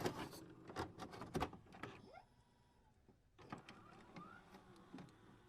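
Faint scattered clicks and knocks, with a near-silent gap about halfway through.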